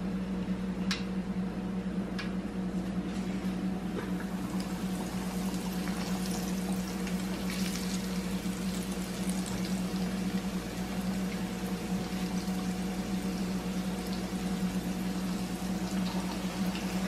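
Breaded chicken frying in hot oil in a stainless steel pot: a steady bubbling sizzle that grows busier a few seconds in as more pieces go in. A steady low hum runs underneath, with a few light clicks near the start.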